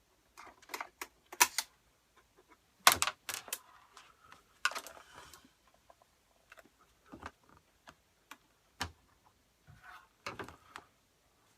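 Irregular small metallic clicks, clinks and taps as a Torx screwdriver and loose screws are handled while the LCD panel's mounting screws are taken out of a 27-inch iMac, with a few sharper knocks among them.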